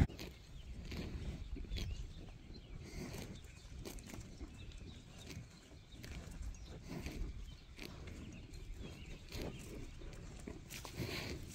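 Holstein dairy cows grazing close by: soft, irregular rustles and thuds of the animals feeding and shifting on wet grass.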